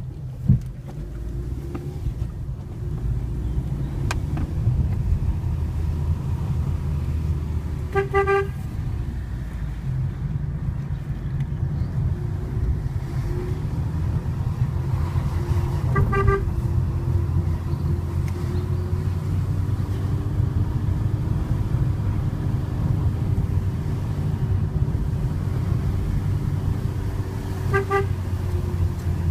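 Fiat Panda's horn giving three short toots, several seconds apart, as warnings on a narrow one-lane mountain road. Under them runs the steady low hum of the engine and tyres, heard from inside the car.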